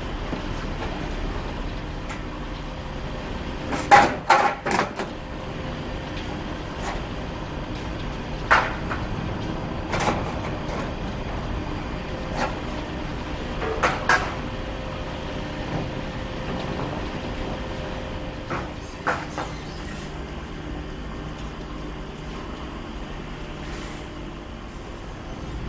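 Knocks and clanks of ratchet load straps being pulled off a truck trailer and dropped on its floor: a quick cluster about four seconds in, then single knocks every couple of seconds, over a steady hum.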